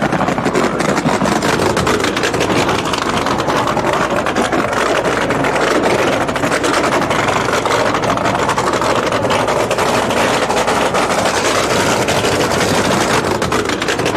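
Supercharged nitro-burning funny car engines running steadily: a loud, dense rumble made of very rapid pulses, with no rise or fall in revs.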